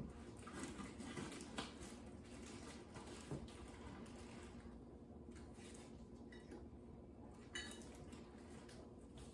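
Faint handling sounds of a potted plant and small decor pieces being moved and set down on a wooden tray: light taps and clinks, mostly in the first few seconds, and a brief squeak about three-quarters of the way through, over a steady low room hum.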